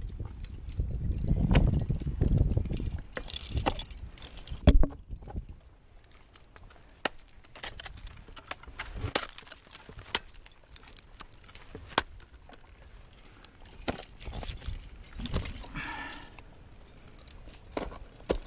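Ice axe picks striking into waterfall ice, a sharp strike every second or two, the loudest about five seconds in, with carabiners and gear on the climber's harness jangling. A low rumble fills the first few seconds.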